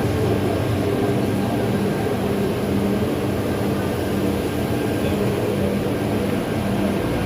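Woodworking machinery running steadily: a continuous mechanical hum with a low drone.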